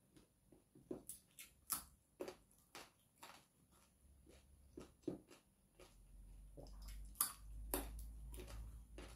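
Close-up wet chewing and lip-smacking of a mouthful of rice and fried mackerel eaten by hand, with many short irregular clicks. A low rumble rises about halfway through.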